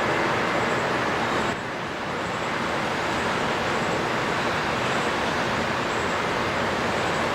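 Steady rushing of running water by the waterside, an even noise that dips briefly about a second and a half in.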